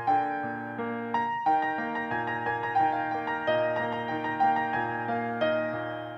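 Background music: a gentle keyboard melody of notes struck about every half second over a steady low bass note.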